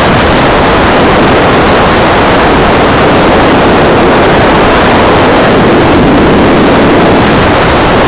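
Loud, steady wind noise buffeting a helmet-mounted camera's microphone as a sportbike rides along at speed, with the bike's running drowned into the rush.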